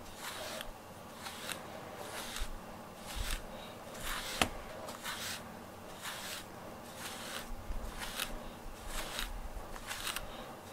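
A grooming brush stroked repeatedly through a cat's fur, a soft rasping swish about once or twice a second, with a single sharp click about four seconds in.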